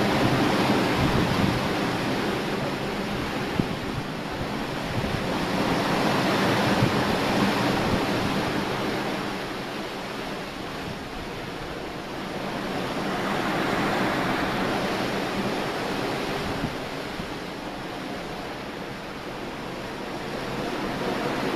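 Sea water rushing and breaking against the hull of a wooden Viking longship under sail, with wind. The rush swells and eases every several seconds.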